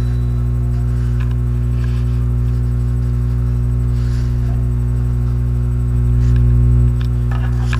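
Steady low electrical hum with a stack of overtones, typical of mains hum, growing briefly louder about six seconds in.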